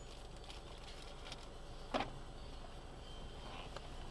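Steady low rumble of a 4x4 driving off-road, heard from inside the vehicle, with one sharp knock about halfway through.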